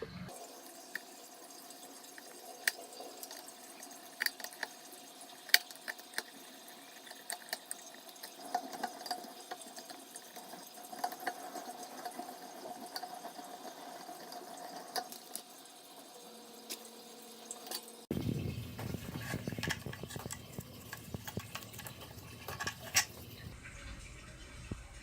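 Water trickling and dripping, with scattered small sharp clicks and knocks; the sound changes abruptly about 18 seconds in, becoming fuller and lower.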